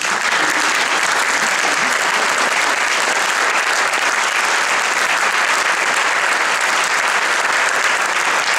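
A theatre audience and the seated wind-band players applauding steadily, a dense, even clapping that starts at once and holds.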